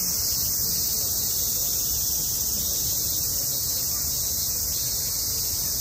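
Summer cicada chorus: a loud, steady high-pitched drone with no breaks, with faint voices of people underneath.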